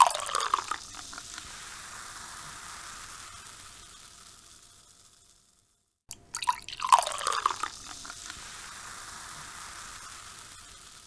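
Soda poured out of a can: a splashing pour with a quick downward-sliding gurgle, then the carbonation fizzing steadily and fading away to silence about five seconds in. A second pour starts about six seconds in, splashes, and settles into fizzing again.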